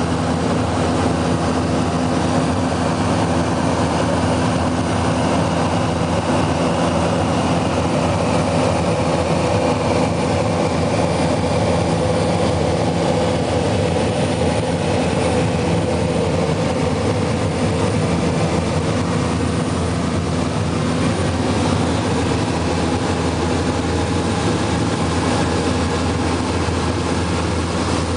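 Steady drone of an aircraft's engines and airflow heard inside the cabin in level flight: a constant low hum of several steady tones over a rushing hiss, unchanging throughout.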